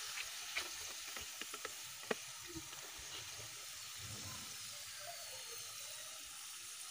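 Soft, steady sizzle of French fries in hot oil in a metal karahi as they are lifted out with a perforated metal skimmer, the fries done and golden. A few short sharp taps of the skimmer against the pan come in the first two seconds.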